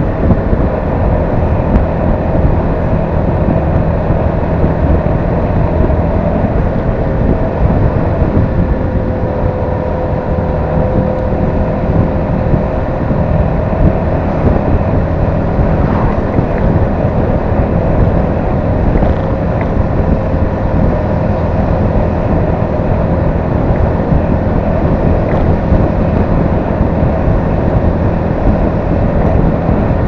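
Honda Forza 300 scooter's single-cylinder engine running steadily at cruising speed, under wind rush on the microphone, with a steady whine held near one pitch.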